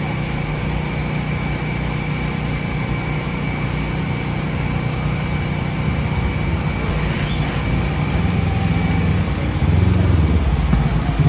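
Scooter engines and a slow-moving truck's engine running in street traffic, a steady low hum that grows louder about ten seconds in as they come close.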